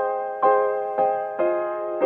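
Piano music: a chord struck about every half second, each fading before the next.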